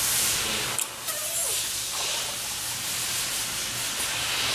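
Compressed air hissing steadily at the spindle while the dynamometer is clamped for a drawbar pull-force test. The hiss dips briefly with a couple of clicks about a second in.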